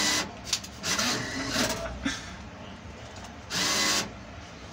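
Banknote acceptor of a payment kiosk drawing in cash: several short whirring motor bursts of about half a second each as a note is pulled in, checked and accepted.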